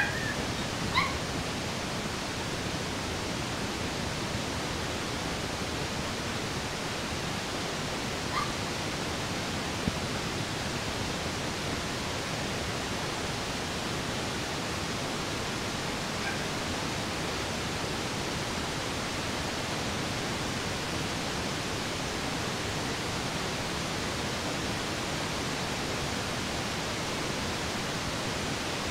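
Steady hiss throughout, with a few brief high squeaks from a month-old Shih Tzu puppy, about a second in and again around eight seconds in.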